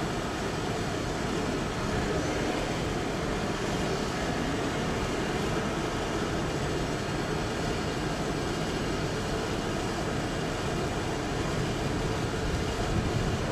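Class 156 diesel multiple unit running slowly away over junction pointwork, a steady train rumble and engine drone without distinct knocks.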